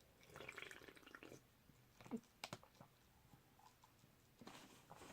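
Slurping a drink, a soft wet sucking sound, with a few sharp clicks a little after two seconds in.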